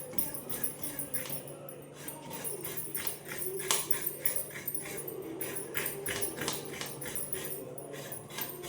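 Coconut half being grated on the serrated scraper of an aruvamanai: repeated rasping scrapes, several strokes a second.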